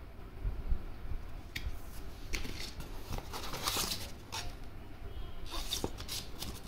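Paper rustling and crinkling in several short bursts as printed leaflets and a thin paper sheet are handled, over low bumps of handling.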